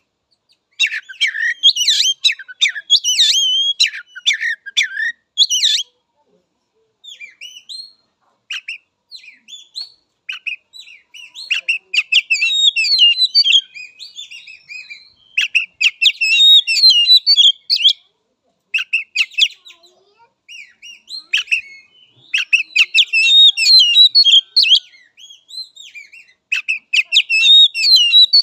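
Oriental magpie-robin singing: bursts of rapid, varied whistles and chattering notes with short pauses between phrases, loudest near the start and in the second half.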